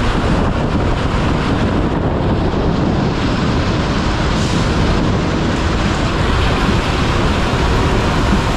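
Heavy rain pouring down, mixed with the rumble of a Mumbai suburban EMU local train running past along the platform. It is a steady, unbroken rushing noise.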